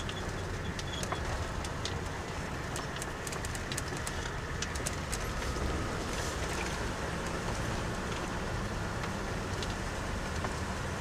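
Off-road car driving slowly over a rough unpaved road: a steady low engine and road rumble, with a run of sharp clicks and rattles a few seconds in.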